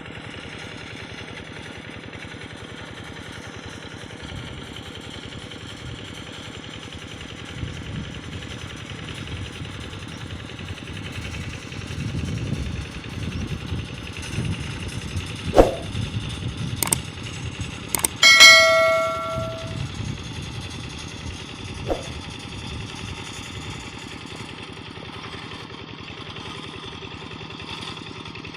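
Kubota RD85 DI single-cylinder diesel engine of a hand tractor idling steadily. About halfway through, a few sharp metal clanks, one ringing briefly like a struck bell, and another clank a few seconds later.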